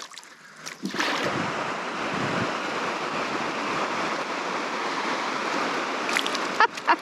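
A steady rushing noise that starts abruptly about a second in, with a few short knocks near the end.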